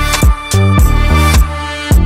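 Background music with a steady drum beat and a heavy bass line.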